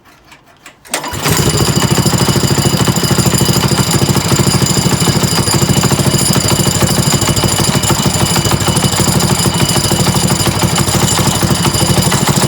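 Predator 212 single-cylinder four-stroke engine catching about a second in after a pull start, then running steadily with fast, even firing. The owner hears a knock in it and suspects the bottom end; the knock was later traced to the clutch.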